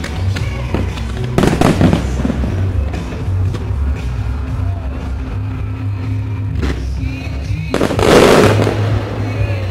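Aerial fireworks shells bursting over music with a steady bass. One burst comes about a second and a half in, and a louder one, about a second long, comes near the end.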